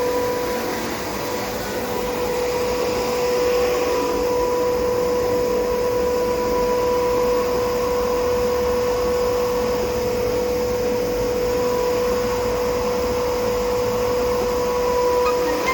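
Electric stone flour mill (millstone grinder) running steadily: a constant machine hum with a steady mid-pitched whine over a hiss of grinding and airflow.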